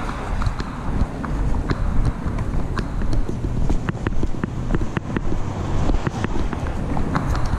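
Footsteps on a concrete sidewalk, heard as irregular sharp clicks a few times a second, from a camera clipped to the walker's chest strap that jolts with each step. Under them runs a steady low rumble of wind on the microphone.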